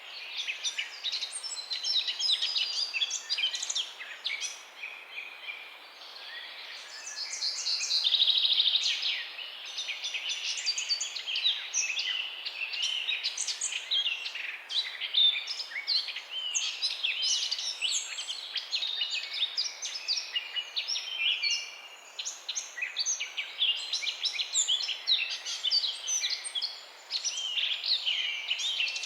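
Many songbirds chirping and singing at once, short overlapping calls and quick glides, with a loud rapid trill about eight seconds in. There is a steady outdoor background hiss underneath.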